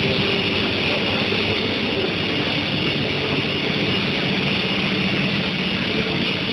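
Steel plate induction heating furnace running: a steady, even industrial noise with faint high steady tones.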